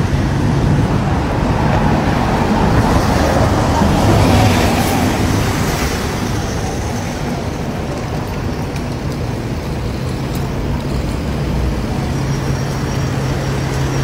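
Busy city street traffic: a steady rumble of engines and tyres from passing vehicles, swelling as one passes close about four seconds in.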